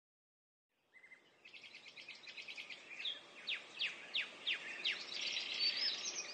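Bird chirps fading in after about a second of silence: a run of quick high calls, each falling sharply in pitch, about three a second, growing louder toward the end.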